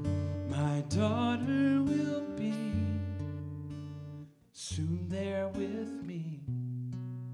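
Acoustic guitar strummed slowly with a man's voice singing two slow wordless phrases over it, ending on a held chord that rings and slowly fades, the close of a slow ballad.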